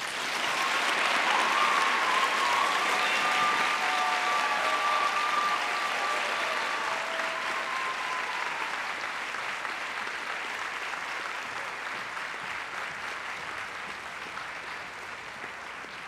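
Audience applauding in a large hall, starting suddenly and slowly dying away, with a few long held cheers over it through the first half.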